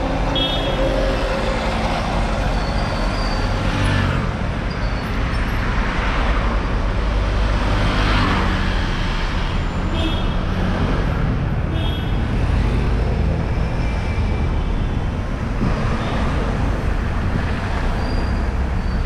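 Street traffic: cars and motor scooters driving past one after another over a steady engine rumble, with several close passes swelling up and fading.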